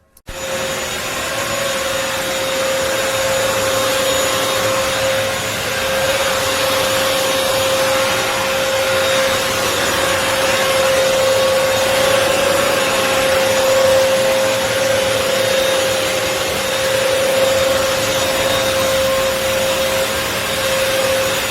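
Bissell CrossWave 560 W wet-dry multi-surface floor cleaner switched on and running: a steady motor and suction noise with a constant whine, cutting in suddenly.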